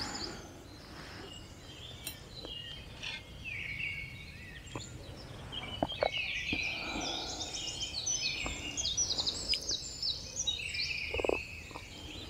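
Several small birds chirping and singing, sparse at first and much busier from about three seconds in, with a few faint clicks.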